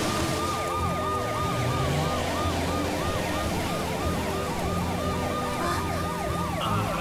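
Cartoon rescue helicopter's siren yelping, a fast rise-and-fall wail repeating several times a second, over a steady low hum and the hiss of a rainstorm.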